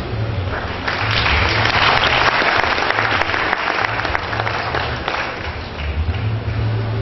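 Audience applauding. The clapping swells about a second in and dies away after about five seconds.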